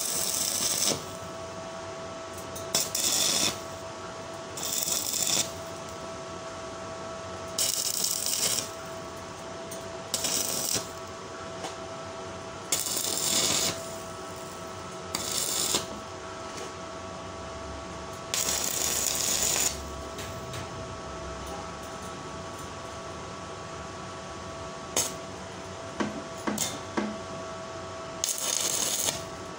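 Stick (arc) welding of thin steel strip: a string of short tack welds, each arc crackling and hissing for about a second, around nine times. A steady whine runs underneath, and a few sharp clicks come shortly before the last weld.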